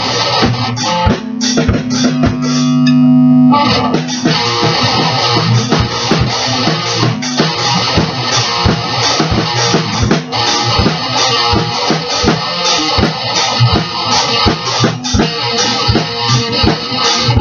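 Electric guitar played through an amplifier: continuous rhythmic strumming, with one chord left ringing for about two seconds just after the start.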